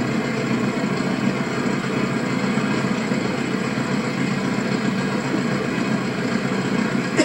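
An engine running steadily with a low, even drone, as heard while travelling in a vehicle. A brief sharp click near the end.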